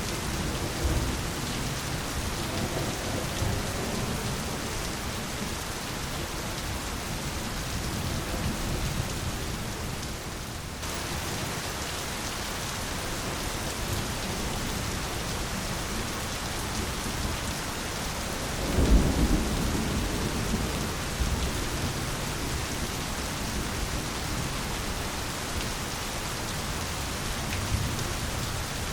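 Steady heavy rain falling on jungle foliage, with rumbles of thunder rolling through, the loudest one about 19 seconds in.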